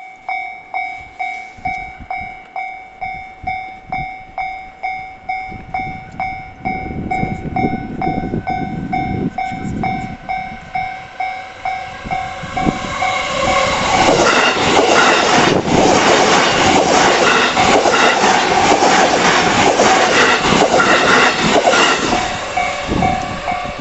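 Japanese level-crossing warning bell ringing steadily in an even ding about twice a second while a train approaches, its running noise building up underneath. The train passes from about halfway, loud enough to drown out the bell for some ten seconds, and the bell is heard again near the end.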